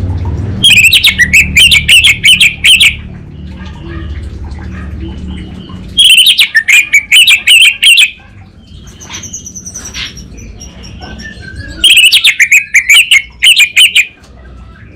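Orange-headed thrush singing in three loud bursts of fast, chattering notes, each about two seconds long, in the crackling style that bird-keepers call "kabel konslet". Softer whistled notes fall between the bursts.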